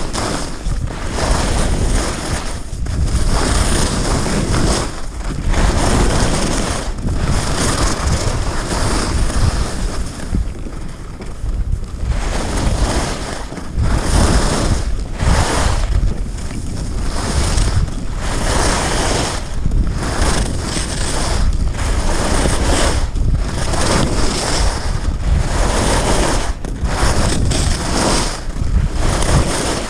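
Skis hissing and scraping over packed snow on a fast downhill run, mixed with wind rushing over the camera microphone. The noise swells and eases every second or so, in time with the turns.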